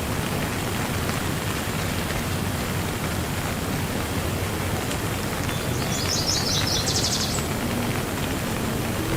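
Steady rain falling, an even hiss. About six seconds in, a bird gives a short, rapid, high-pitched trill.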